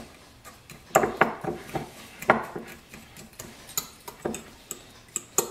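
A metal spoon stirring a dry mix of brown sugar and spices in a small white ceramic bowl, clinking and scraping against the bowl in irregular taps about a second apart.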